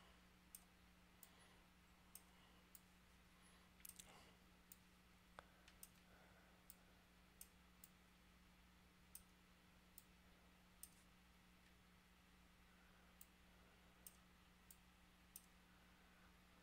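Computer mouse clicking faintly and irregularly, about twenty single clicks with a short pause partway through, over a steady low hum.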